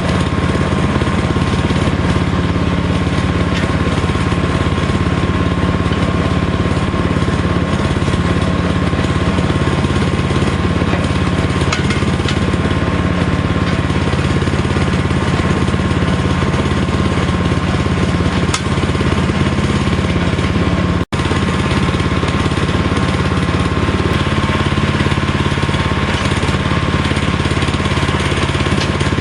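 Harbor Freight portable band sawmill running steadily, its gas engine droning under load as it cuts a cedar log, with a steady higher tone over the engine. The sound drops out for an instant about two-thirds of the way through.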